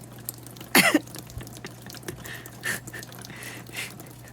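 A person's voice calls out once, about a second in, with a falling pitch, then faint dripping and pattering of rain.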